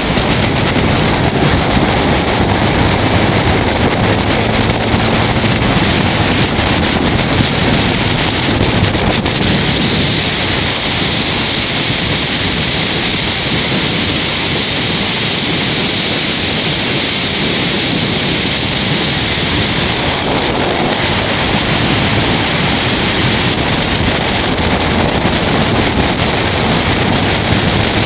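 Race car running at speed on a circuit, recorded onboard: a steady mix of engine noise and wind rushing over the microphone, with no clear gear changes or revving.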